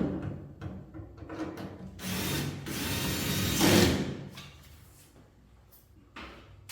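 Clatter and scraping of parts and tools being handled, starting with a sudden knock, with a louder scraping rush about two seconds in that lasts about two seconds.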